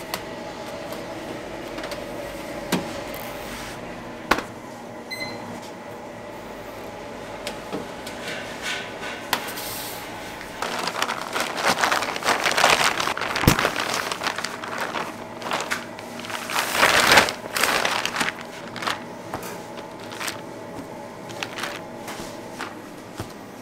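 Bakery kitchen work sounds: a steady machine hum with a few held tones under it, scattered clicks and knocks, and a louder stretch of rustling handling noise about halfway through.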